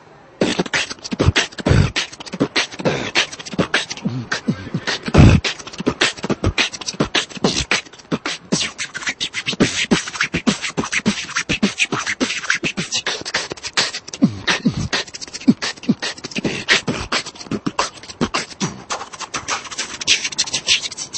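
Fast vocal beatboxing: a dense, rapid stream of mouth-made drum sounds with a few deep bass kicks, the loudest about five seconds in. It starts after a brief pause about half a second in.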